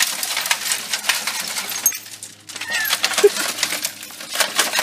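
Shattered screen glass of an old GE CRT television clinking and tinkling as shards fall and are knocked about, a rapid irregular run of sharp little clicks with a short lull about two seconds in.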